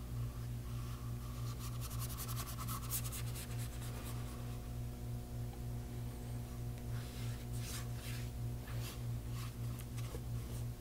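A wide flat paintbrush scratching and rubbing watercolour paint across illustration board in runs of quick short strokes, a couple of seconds in and again near the end, over a steady low hum.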